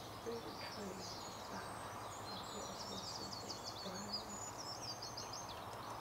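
Small songbirds chirping and singing in short high phrases, with a run of quick trills about halfway through, over a steady outdoor background hiss.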